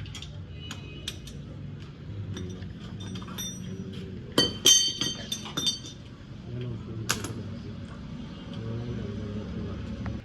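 Metal objects clinking and clattering as they are handled, with scattered light clicks and a louder cluster of ringing clinks about halfway through, over a low background murmur.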